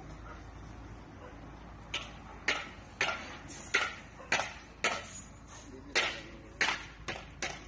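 Footsteps crunching on loose gravel, about two a second and evenly paced, starting about two seconds in, over the low, steady running of the dump truck's engine.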